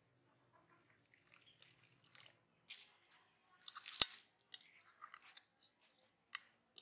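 Tea trickling into a cup for the first couple of seconds, then a knife and fork clinking and scraping on a china plate while cutting a fried egg. One sharp clink about four seconds in is the loudest.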